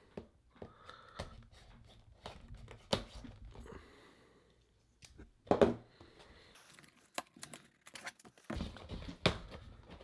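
Scissors slitting the tape on a cardboard box, then the box being handled and turned over: scattered taps, scrapes and short tearing sounds, loudest about five and a half seconds and nine seconds in.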